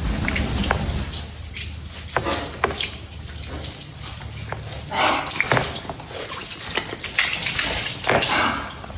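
Small bird bathing, splashing water in short irregular bursts.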